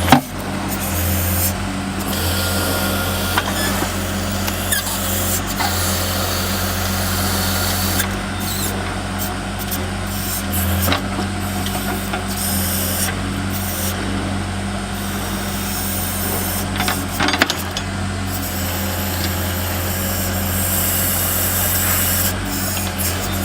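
Compact loader's engine running steadily while it works a backhoe attachment. A few sharp knocks come through, about eleven seconds in and again near seventeen seconds.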